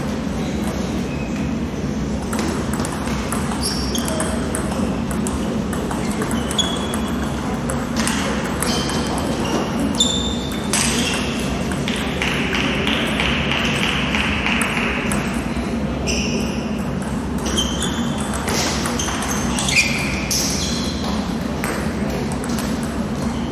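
Table tennis balls bouncing on tables and striking bats, heard as irregular sharp clicks and short high pings, over background voices and the steady noise of a large sports hall.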